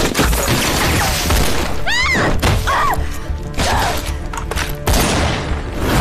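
Staged film gunfight: rapid submachine-gun and rifle fire, with a ricochet whine about two seconds in, over dramatic background music.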